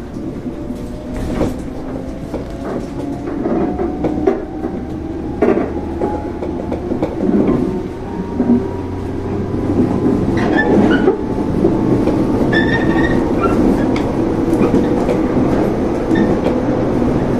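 JR 115 series electric train's MT54 traction motors whining under power, the pitch climbing steadily as the train gathers speed. Sharp clacks of the wheels over rail joints and points come through it, with a brief wheel squeal about ten seconds in.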